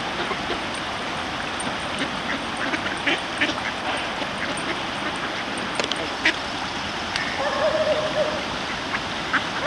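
Mallard ducks quacking, with one longer call about three-quarters of the way through, over a steady background hiss with scattered small clicks.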